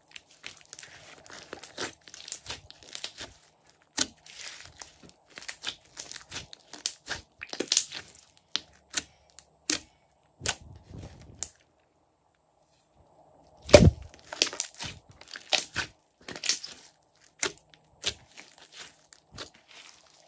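Hands kneading, poking and stretching a thick slime, giving irregular sticky clicks and pops as air pockets squeeze out. A pause of about two seconds comes past the middle, then one loud, deep pop.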